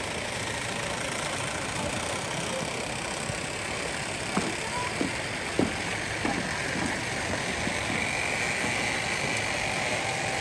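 A steady rushing hiss. Over it, about halfway through, come a handful of sharp knocks and creaks from a bamboo footbridge as someone walks across it.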